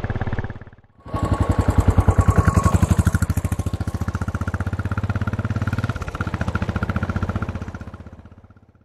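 Royal Enfield Classic 500's single-cylinder four-stroke engine running, with distinct, evenly spaced exhaust beats. It starts about a second in after a brief gap, is loudest in the first couple of seconds, then holds steady before fading out near the end.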